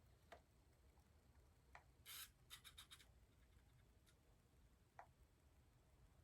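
Near silence: room tone with a few faint clicks and a brief scratchy rub about two seconds in, followed by a few quick ticks.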